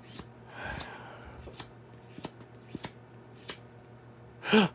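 Pokémon trading cards handled and flipped through by hand: a soft sliding rustle, then scattered light clicks and taps as cards are moved through the stack.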